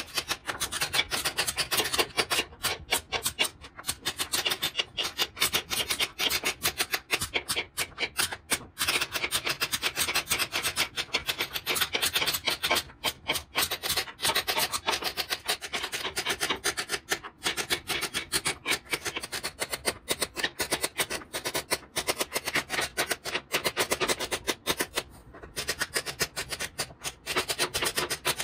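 A hand tool worked rapidly back and forth on wood, a steady run of scraping strokes with a few brief pauses.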